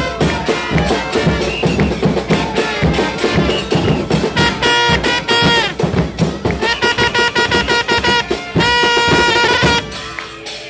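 Upbeat dance music with a steady drum beat and held brass notes over it; the music drops away shortly before the end.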